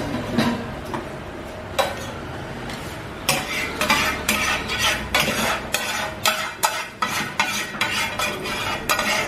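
Metal ladle scraping and knocking against a frying pan, gathering up thick masala gravy: a run of quick scrapes and clinks, sparse at first and coming several a second from about three seconds in.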